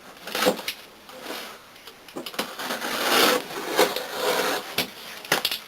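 Cardboard shipping box being opened by hand: irregular scraping and rustling of the cardboard and its packing, busiest from about two seconds in.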